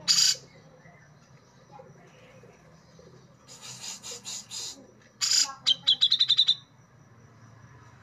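Grey-cheeked bulbul (cucak jenggot, Alophoixus bres) singing in separate phrases. A loud harsh note opens it; about halfway in comes a run of about five harsh notes, then a loud note and a quick run of about eight clear, high notes, with quiet pauses between the phrases.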